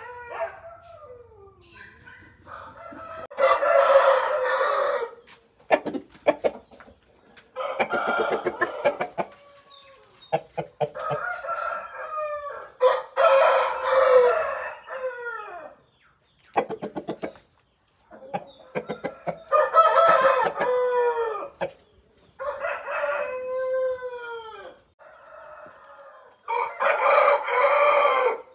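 Roosters crowing in turn, about seven crows in all, each drawn out and ending in a falling tail, with short clucking sounds in the gaps between them.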